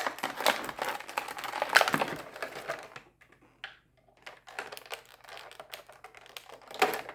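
Plastic and cardboard toy packaging being handled and pulled apart: dense, rapid clicking and crinkling for the first three seconds, then sparser, quieter rustles, with a louder crackle near the end.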